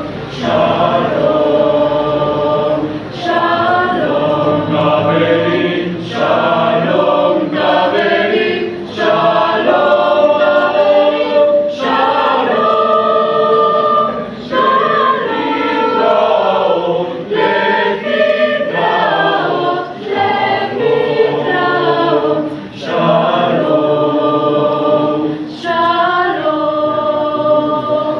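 Mixed choir of men's and women's voices singing in harmony, in phrases a few seconds long with brief breaks between them.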